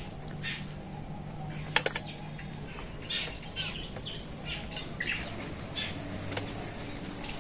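Birds chirping on and off in the background. About two seconds in, a quick pair of sharp metallic clinks as a stainless-steel bowl is set down on a steel plate.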